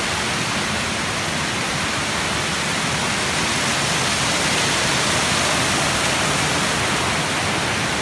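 Steady rushing of a river cascading over rock ledges into a pool.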